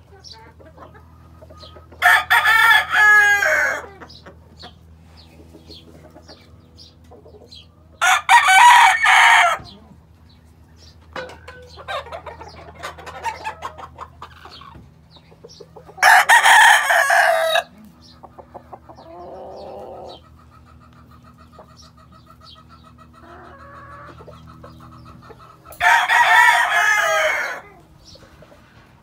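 Gamefowl roosters crowing four times, each crow about two seconds long and several seconds apart, with quieter clucks and calls in between over a steady low hum.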